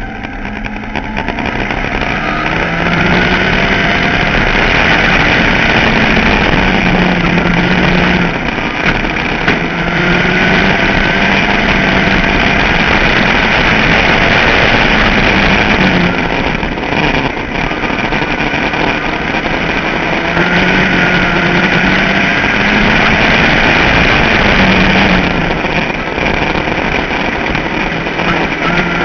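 Ford Focus midget race car's four-cylinder engine racing at full throttle, heard from on board, its pitch climbing and dropping every few seconds as the driver accelerates and lifts, with the engines of the other midgets running close around it.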